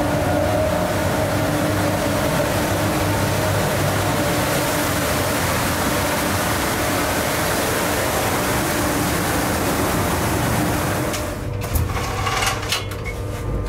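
Steady rushing hum of the running equipment inside an EuroSprinter class 120 electric locomotive's machine room, with a few faint steady tones under it. About eleven seconds in, the rush drops away and a few clicks and knocks follow.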